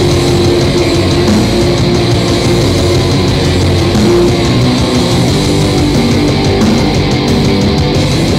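Live heavy metal band playing loud: distorted electric guitars over bass and fast drums, dense and unbroken.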